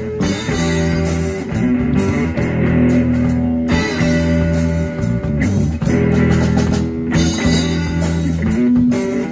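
Live rock band playing an instrumental passage with no vocals: electric guitar and bass guitar over a drum kit.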